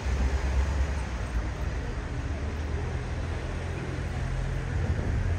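Town street ambience dominated by the low, steady rumble of road traffic, with a low engine hum between about three and five seconds in.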